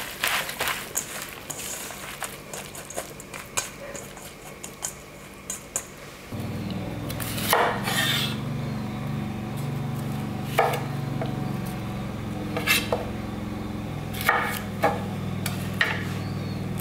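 Hands squishing and tossing seasoned fresh wakame seaweed in a stainless steel bowl, with small wet clicks. About six seconds in it changes to a kitchen knife cutting broccoli on a wooden board: about half a dozen sharp chops over a steady low hum.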